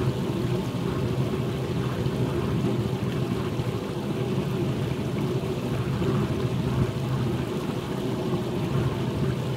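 A small boat's engine running steadily, a constant low drone as the boat travels across calm water.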